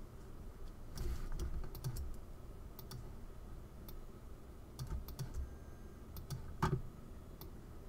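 Irregular clicking of a computer mouse and keyboard while drawing with the pen tool: a dozen or so short clicks, with one louder knock about two-thirds of the way through, over a low room hum.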